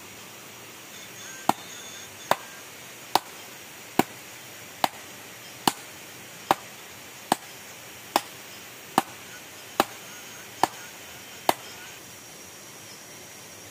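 Wood being chopped with a hand blade on a log block: thirteen sharp, evenly spaced strokes a little under a second apart, starting about a second and a half in and then stopping.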